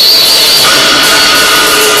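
Harsh noise music: metal cans and a cymbal played through echo and an amplifier, a loud, dense wall of noise. Steady whistling tones sit on top of it, and a new one comes in about a third of the way through.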